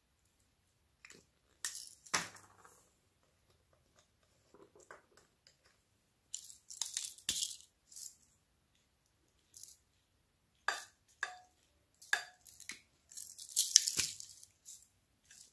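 Small plastic paint-pen bottles and a glitter jar being handled: scattered clicks and taps with short rattling bursts, the loudest cluster near the end.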